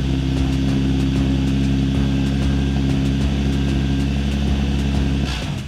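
Nissan 350Z's V6 engine idling steadily just after a cold start, running again on a new battery that replaced a dead one. The sound cuts off abruptly near the end.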